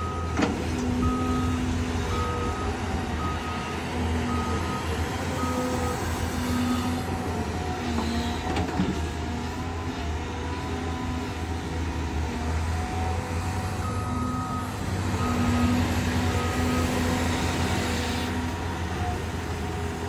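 CAT hydraulic excavator's diesel engine running steadily as the machine digs and swings. A heavy machine's reversing alarm beeps in two spells, through the first few seconds and again about two-thirds of the way through.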